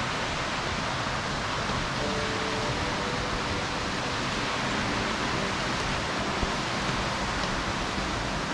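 Steady rush of a waterfall: an even, constant roar of falling water with no breaks.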